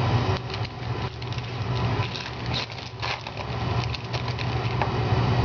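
Trading cards and pack wrappers being handled: irregular rustling and light clicks as cards are flipped through or a pack is opened.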